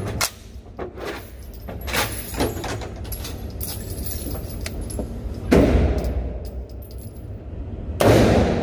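Gunshots echoing in an indoor range: a few fainter reports in the first couple of seconds, then a loud shot about five and a half seconds in with a long reverberant tail, and another loud shot near the end, from a short-barrelled AR-style rifle.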